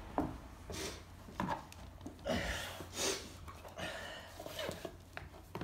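A man breathing hard with effort in short puffs, with small scrapes and clicks as a vinyl floor tile is pushed and worked into its gap over wet adhesive.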